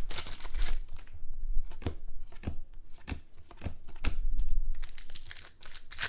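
Crinkling of a trading-card pack wrapper and cards being handled at a table, with a few separate sharp taps in the middle.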